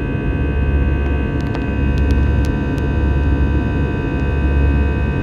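Airbus A320's jet engines at climb power heard inside the cabin during the climb out after takeoff: a steady deep rumble and rushing noise with several steady whining tones on top. A few faint ticks come in the middle.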